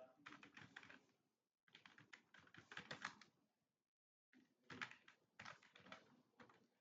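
Computer keyboard being typed on in fast runs of keystrokes, pausing briefly twice.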